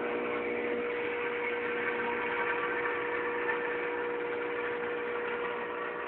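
Microwave oven running with a steady hum, with the hiss of a plum heating and boiling inside it.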